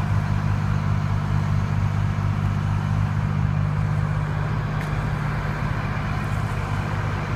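Diesel engine of a 2001 MCI F3500 motor coach idling with a steady low hum.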